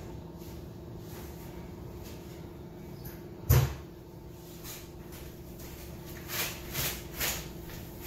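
Household handling sounds: one heavy thump about midway, then three lighter knocks near the end, over a steady faint hum.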